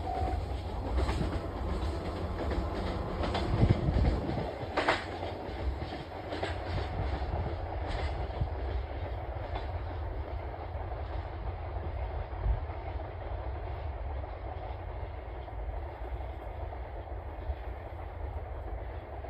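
Freight train rolling past: a steady low rumble with wheels clacking over rail joints. The clacks thin out after about eight seconds and the rumble slowly fades.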